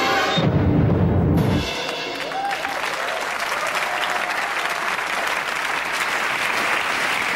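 Music cuts off abruptly about one and a half seconds in, and a studio audience then applauds steadily.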